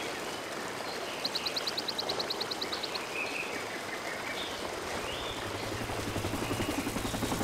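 Running water from a stream or waterfall as a steady hiss. A bird gives a fast, high trill of about ten notes a second from about one second in, then a few short chirps. Over the last two seconds the pulsing beat of a helicopter's rotor fades in and grows louder.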